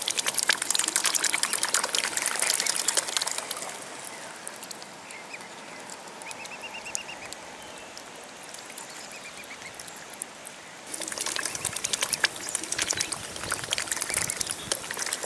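A mute swan and her cygnets dabbling for food in shallow water, bills working at the surface with rapid wet clicking and slurping, loudest in two spells at the start and again near the end. In the quieter stretch between, a short run of faint high chirps sounds.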